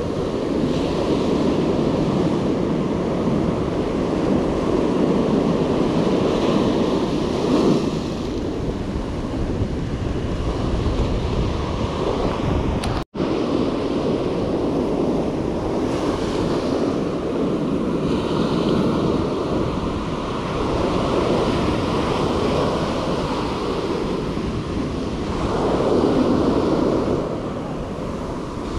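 Surf breaking and washing up a sandy beach, swelling and easing as each wave comes in, with wind rumbling on the microphone. The sound cuts out for an instant about halfway through.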